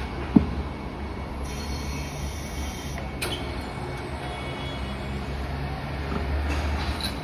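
A steady low mechanical hum, with one sharp knock about a third of a second in and fainter clicks about three seconds in and near the end.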